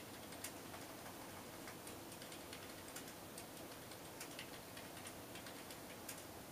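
Faint room noise with a low steady hum, and small sharp ticks and clicks scattered at irregular intervals, several a second at times.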